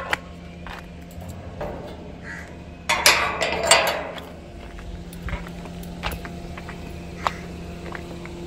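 Rusty wrought-iron gate being shut and bolted by hand: metal clicks and clanks as the sliding bolt is worked, with the loudest rattling scrape about three seconds in. Crows cawing in the background.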